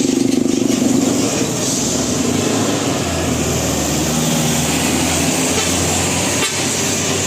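Bus engine running steadily, its low note shifting in pitch now and then.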